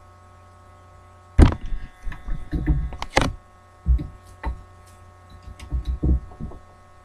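Irregular knocks and thumps from the recording device being handled and bumped close to its microphone, over a steady electrical hum.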